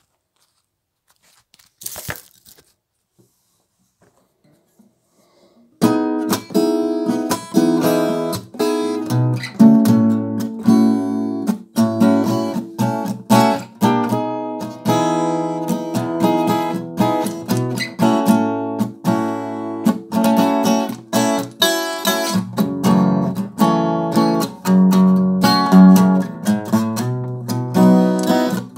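Acoustic guitar played after a few seconds of near silence broken by one brief knock: about six seconds in it starts, with picked notes and chords sounding one after another in quick succession.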